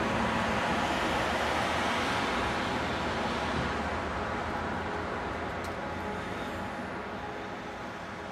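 Steady road traffic noise from a motorway close by, a continuous rush of passing cars that slowly fades out over the second half.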